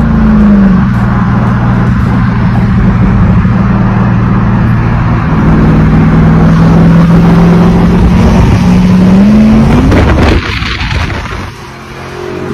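Loud V8 exhaust drone from muscle cars driving side by side, holding a mostly steady pitch with a dip at the start and a rise just before the end. About ten seconds in it cuts off abruptly to a much quieter sound.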